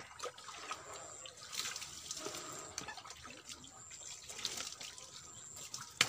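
Water scooped by hand from a tub and poured out, with irregular splashes and drips.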